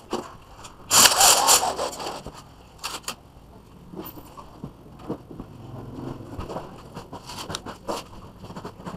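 Handling noise from ceiling installation work: a loud scrape lasting about a second, starting about a second in, then scattered light clicks, rattles and rustles as a black cable is gripped and worked.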